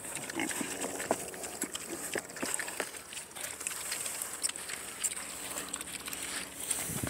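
Several pigs eating feed out of pans, with irregular chewing and crunching clicks.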